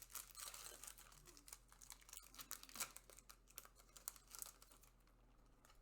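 A Yu-Gi-Oh! booster pack's foil wrapper being torn open and crinkled by hand: a faint, rapid run of crackles that dies away near the end.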